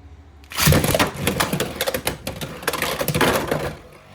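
Beyblade X spinning tops launched into a plastic stadium about half a second in, then clattering, clicking and colliding rapidly for about three seconds before the noise dies away.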